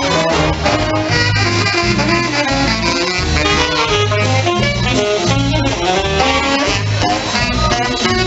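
A live big band playing jazz: a saxophone section and brass carry the tune over a steady beat.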